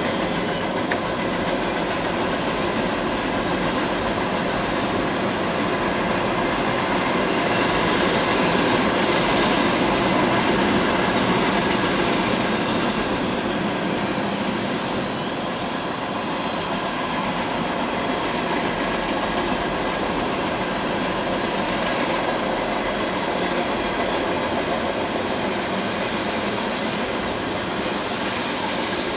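Freight train cars rolling past: a steady rumble and clatter of wheels on the rails, swelling slightly about a third of the way in.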